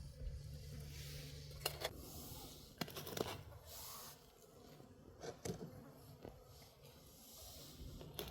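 Faint scattered clicks and light taps over a low hum that stops about two seconds in.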